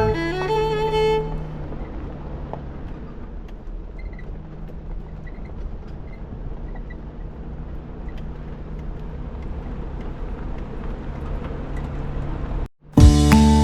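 Nissan Xterra driving on a dirt off-road trail: steady engine hum and rumbling road noise. Background music fades out about a second in and guitar music cuts back in abruptly near the end.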